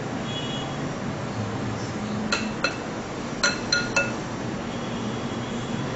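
Five short ringing clinks on a plate, two about two seconds in and three more around three and a half seconds in, as a hand presses breadcrumbs onto a fish fillet on it, over a steady low hum.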